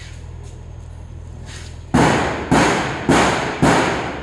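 Hammer blows struck by hand on a long curved workpiece, four sharp strikes about two a second starting about two seconds in, each ringing briefly as it fades. Before them only a low steady hum.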